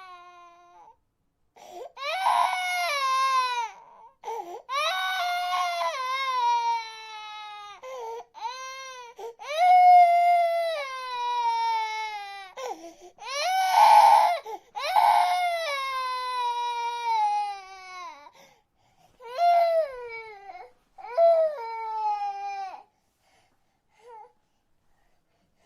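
Baby crying in a series of long wails, each falling in pitch, broken by short breaths. Near the end the cries turn shorter and weaker.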